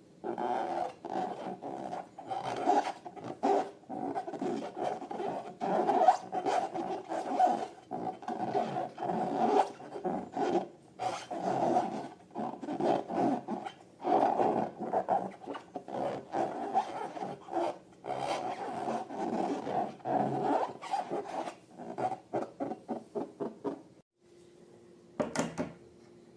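Rubber balloons being rubbed and squeezed by hand: a long, dense run of squeaky rubbing that stops near the end, followed by a single sharp snap.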